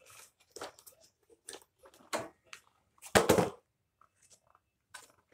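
Plastic and cardboard toy packaging being handled, with short crinkles and rustles and the loudest crunch about three seconds in.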